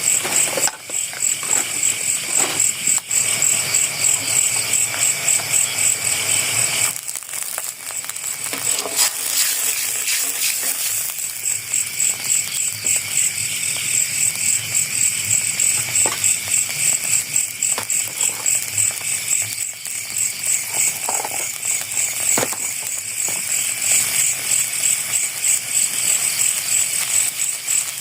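Insects chirping in a steady, high, evenly pulsing chorus, with a few soft knocks of handling now and then.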